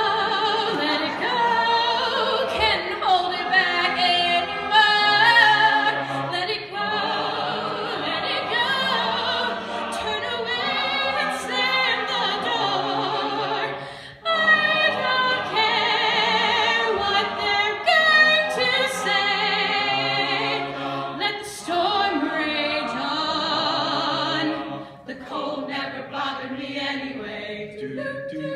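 Mixed men's and women's a cappella group singing in close harmony, with a low bass line under sustained chords. The singing breaks off briefly about 14 seconds in, then resumes.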